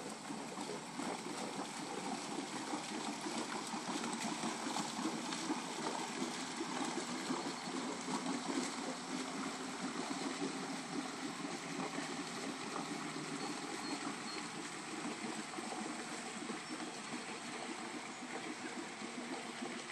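Homemade shuttle-styled pontoon boat's motor running steadily as it cruises away, easing a little toward the end, with water gurgling and lapping.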